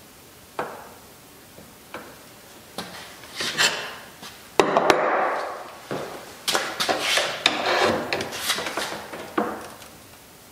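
A socket ratchet clicking, with metal tool knocks, as a flash hider is cranked tight onto an AK's muzzle threads. Scattered clicks come first, then a louder scraping rustle about halfway through, then a long run of irregular clicks.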